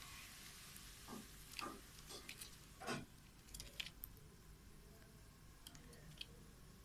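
Budgerigars pecking and cracking seed: a few soft clicks and taps, the loudest two in the first half, then fainter small ticks.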